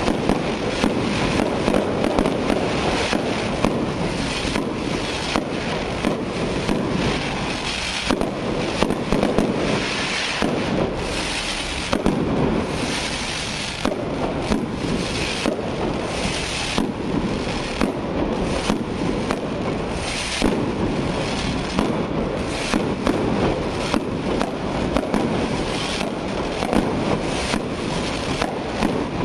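Fireworks display: a sustained barrage of shells bursting overhead, with sharp bangs about twice a second over a continuous crackle and hiss.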